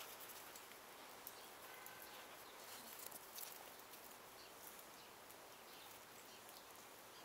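Near silence with faint, scattered soft crunches of snow as a cocker spaniel pushes its head and body through a snow pile.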